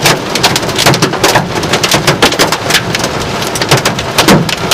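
Hail pelting a car's body, heard from inside the car: a dense, irregular clatter of sharp hits, many a second, over the hiss of heavy rain.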